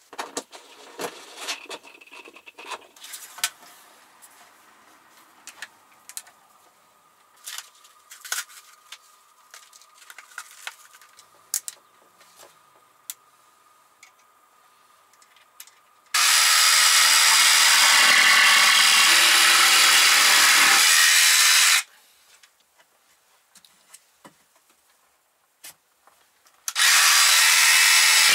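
Light knocks and rattles of tools and parts being handled, then a cordless power saw cutting through wooden boards twice: one cut of about five seconds, and a second starting near the end.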